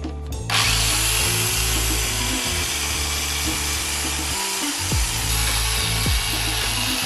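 Angle grinder with a wire cup brush scouring a brake caliper clamped in a vise. The grinder runs steadily from about half a second in and cuts off abruptly near the end, with background music underneath.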